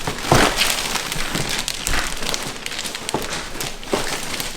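Gift wrapping and packaging rustling, crinkling and crackling as a present box is handled and unwrapped, with a sharp louder crackle about a third of a second in.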